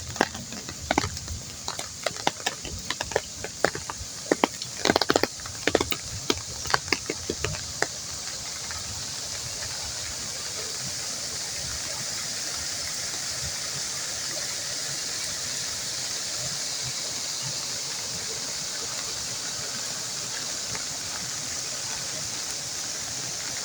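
Rainwater runoff rushing down a flooded gully, a steady rushing. Over the first eight seconds or so there are scattered sharp taps and knocks on top of it.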